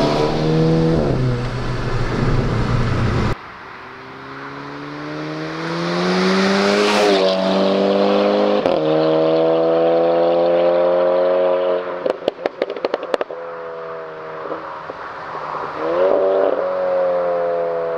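VW Scirocco R's tuned 2.0 TSI turbocharged four-cylinder with an FI aftermarket exhaust, accelerating hard through several upshifts, the pitch rising and dropping at each gear change. First it is heard from inside the cabin, then from the roadside. About twelve seconds in comes a quick burst of sharp exhaust pops and crackles on lift-off, followed by more revving and shifts.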